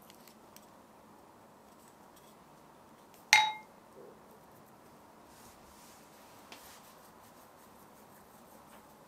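A single sharp clink of a kitchen utensil or dish against a glass or ceramic bowl a little over three seconds in, ringing briefly. A few faint small knocks from kitchen handling follow.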